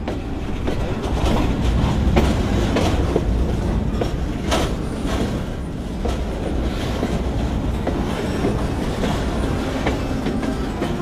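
Freight train running: a steady low rumble of the wagons with irregular clanks and clacks of the wheels and couplings.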